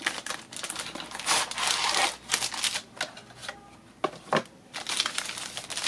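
Plastic-wrapped sticker sheets and note pads sliding out of a cardboard box and crinkling as they are handled, an irregular rustle with louder stretches and a couple of sharp taps about four seconds in.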